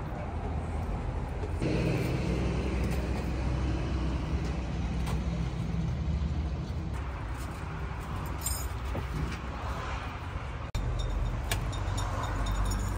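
Steady low hum of a running motor vehicle engine with road traffic noise, with a few sharp clicks and knocks. The background changes abruptly about 1.5, 7 and 11 seconds in.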